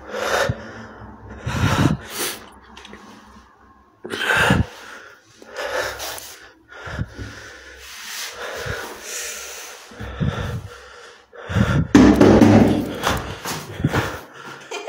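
A person breathing hard and gasping close to a phone's microphone, with several sharp knocks and bumps in the first few seconds and a louder, fuller gasp or exhale near the end.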